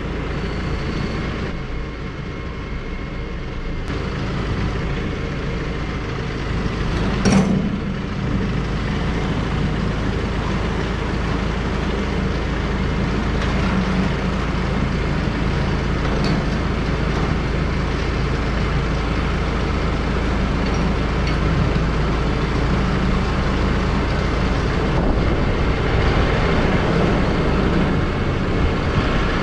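A heavy engine running steadily, with one sharp metallic clank about seven seconds in.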